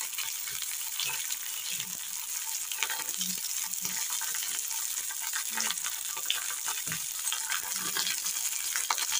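Chopped carrots and green peas sizzling in hot oil in a wok, a steady hiss with scattered small crackles and ticks.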